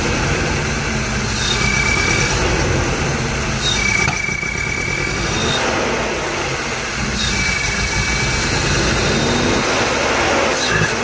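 Hindustan Contessa's Isuzu multipoint fuel-injected four-cylinder engine running with its air intake off, heard at the open throttle body while the throttle is held by hand. A high whistling tone comes and goes several times over the steady engine sound.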